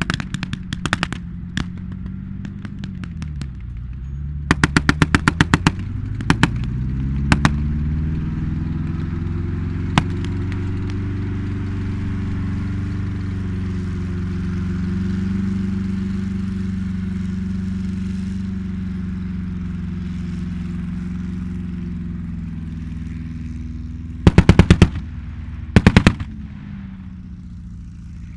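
Short bursts of blank machine-gun fire, several in the first eight seconds, a single shot about ten seconds in and two more bursts near the end, over an M4 Sherman tank's engine running. The engine drops in pitch about three seconds in, then revs up and holds a higher steady note.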